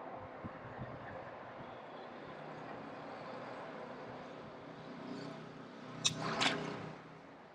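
Outdoor ambience with a motor vehicle running, building in the second half; a sharp click about six seconds in, then a brief louder burst that dies away.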